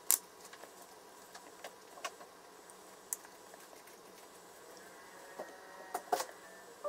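Wooden chopsticks tapping and clicking against bento boxes as pieces of cooked chicken are picked up and laid in: a few scattered soft clicks, the sharpest just after the start and a quick pair near the end.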